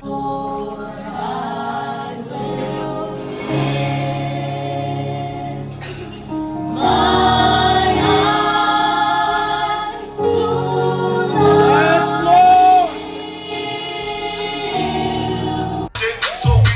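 Gospel choir singing in sustained, layered harmony, with one voice sliding in pitch above the group. Near the end it cuts abruptly to a different music track with a beat.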